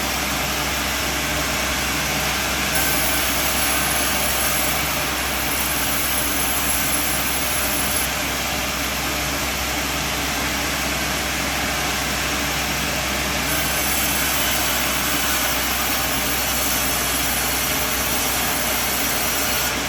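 Bandsaw sawmill running steadily with a constant mechanical drone and a hiss that shifts slightly in tone a few times.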